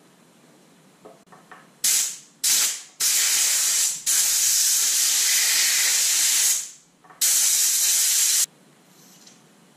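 Aerosol spray can with a straw nozzle hissing in five bursts: two short ones about two seconds in, then longer sprays of about one second, two and a half seconds and just over a second. It is aimed at a seized screw on an outboard's tilt pump.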